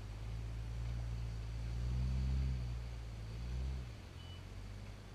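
Rock-crawler buggy's engine working under load as it climbs a sandstone ledge. The revs rise to their loudest about two seconds in and ease off shortly before four seconds.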